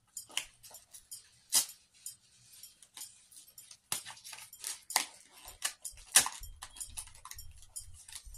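Paper and cardboard packaging being handled: scattered rustles and sharp crackles, with a few louder snaps.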